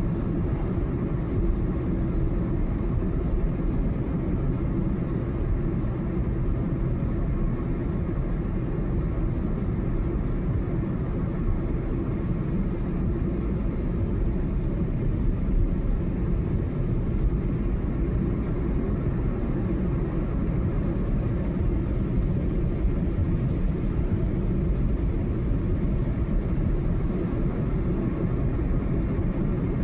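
Steady road noise of a car driving at highway speed: an even low rumble of tyres and engine that holds level throughout.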